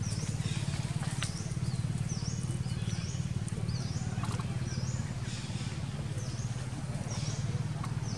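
Short, high-pitched chirping calls repeated roughly once a second over a steady low hum.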